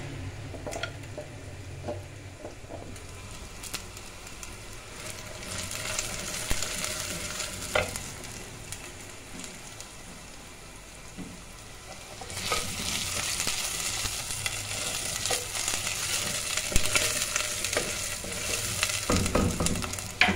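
Sliced onions and ginger–green chilli paste sizzling in oil in a terracotta pot, stirred with a wooden spatula that scrapes and taps against the clay. The sizzle gets louder about two-thirds of the way through.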